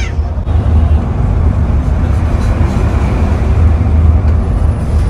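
Steady low rumble of road and tyre noise inside a moving electric bus, with no engine note.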